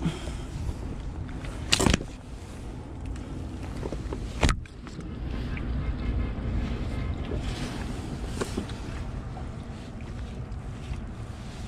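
Steady wind noise on the microphone, with two brief sharp knocks, about two seconds and about four and a half seconds in.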